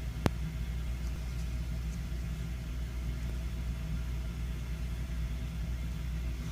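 Steady low hum with a faint even hiss, broken once by a sharp click about a quarter second in.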